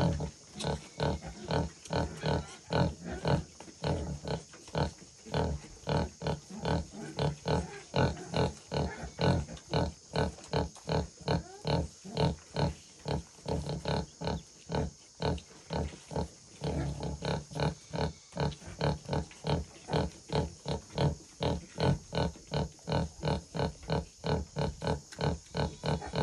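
Sow grunting rhythmically, short low grunts about three a second, while her piglets suckle. This is the nursing grunting a sow keeps up through a feed.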